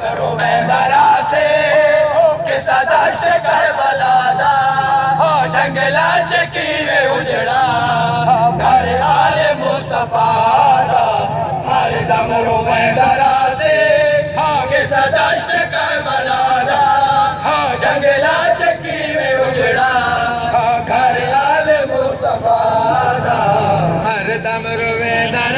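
A group of men chanting a noha, a Muharram mourning lament, in a rising-and-falling melody.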